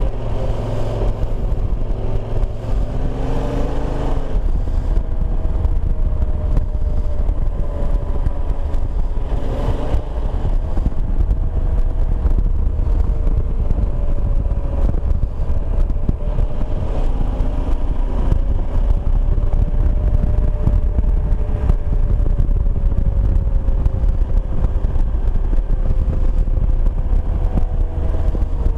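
Yamaha Super Ténéré's 1200 cc parallel-twin engine running under way while riding, its pitch climbing and dropping back a few times as the revs change, over a heavy low wind rumble on the microphone.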